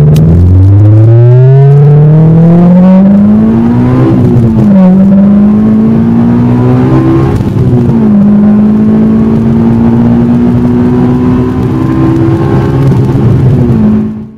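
Honda S2000's four-cylinder engine heard through a Spec D aftermarket cat-back exhaust from inside the cabin with the top up. It revs up hard, drops at a gear change about four seconds in, and climbs again. It then holds a steady drone while cruising.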